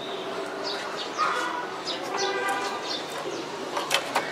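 Chinese hwamei singing: a continuous run of varied whistles, chirps and quick falling notes, with a few sharp clicks near the end.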